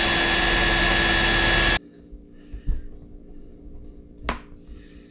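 Small power drill running steadily, its bit boring into the post of a die-cast metal toy truck casting, then stopping abruptly about two seconds in. A few light clicks follow.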